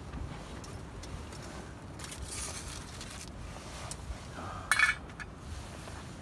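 Metal camping pot and utensils clinking and scraping as the pot is set down and handled, with one sharp metallic clatter about three-quarters of the way through.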